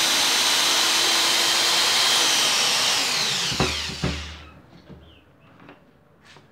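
Bosch GSR 7-14 E corded drill-driver motor running at a steady high speed, then released so it winds down with a falling whine about three seconds in. Two sharp knocks come as it slows, followed by faint handling clicks.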